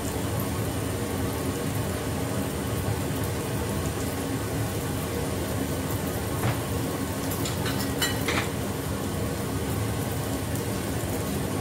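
Steady sizzle and bubbling on a gas stove: an omelette frying in plenty of oil over a low flame, with liquid simmering in a second pan. A few light clinks of kitchenware come past the middle.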